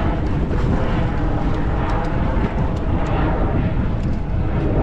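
Steady wind rumbling on the microphone aboard a small boat at sea.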